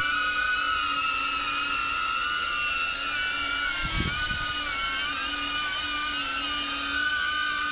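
DJI Avata FPV drone in flight: the high whine of its ducted propellers, the pitch wavering up and down as the motors speed up and slow down. A dull thump comes about four seconds in.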